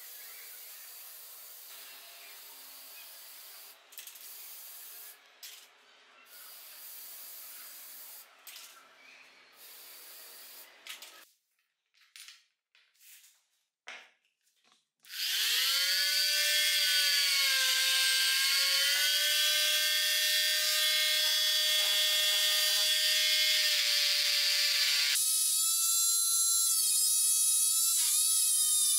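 Handheld electric rotary tool spinning up with a rising whine, then running steadily. About 10 seconds later its whine jumps to a higher pitch as it speeds up for work on a small steel part. Before it starts there is a faint steady hiss with brief gaps, then a few light clicks.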